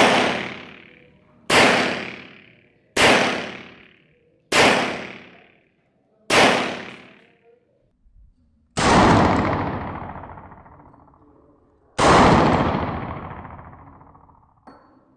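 Semi-automatic pistol fired five times, about a second and a half apart, each shot ringing out for about a second. Then two more bangs, duller and with much longer tails of about three seconds.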